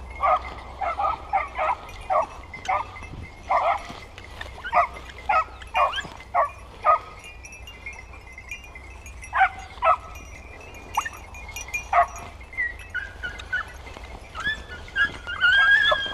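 Five- to six-month-old hound pups yelping in quick runs of short barks, about two a second for the first several seconds, then a few more after a short pause.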